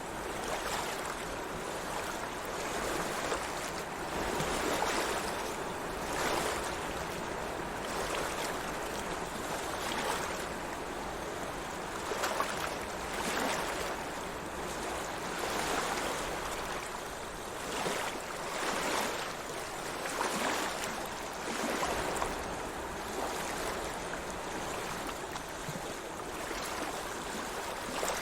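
Sea water washing and lapping, a continuous wash that swells slightly every second or two.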